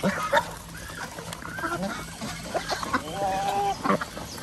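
A flock of domestic ducks calling while they feed, with many short quacks and calls overlapping. One longer, level call stands out about three seconds in.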